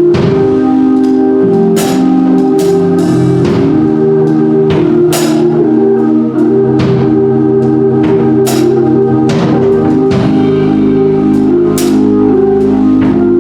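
Gospel praise band playing: held organ chords over a drum kit, with sharp drum and cymbal hits every second or two.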